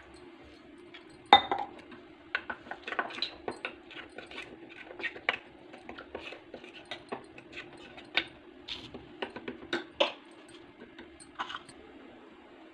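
A metal spoon stirring a wet spice mixture in a small stainless-steel bowl, clinking and scraping against the sides in irregular taps, with a sharp clink about a second in.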